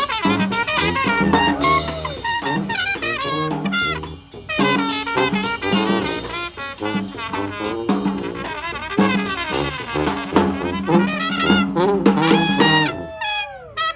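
Brass band playing an up-tempo instrumental, horns over drums; near the end the horns slide down together in a falling glide.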